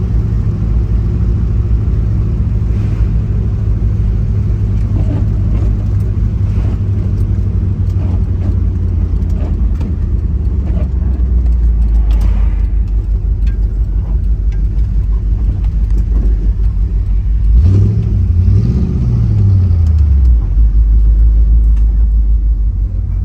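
A car engine running steadily with a strong low drone, its pitch rising and then falling once, about three-quarters of the way through.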